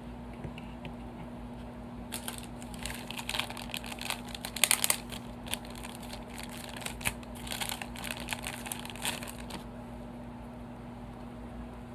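Crinkling packaging handled in quick, crackly bursts for several seconds, loudest about halfway through, as a small plastic model horse is taken out of its packaging.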